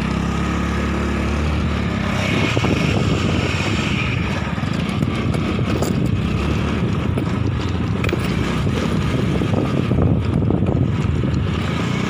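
A Honda automatic scooter's engine runs steadily, then pulls away and keeps riding from about two seconds in, with road and wind noise rising. This is the test ride after its clutch linings were cleaned and sanded, and the owner finds the scooter no longer judders or hisses when moving off.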